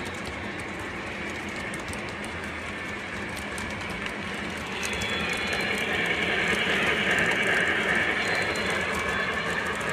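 Lionel O gauge model trains rolling past over the track and switches, the wheels clicking steadily. About five seconds in the sound grows louder as a model steam locomotive runs by close up.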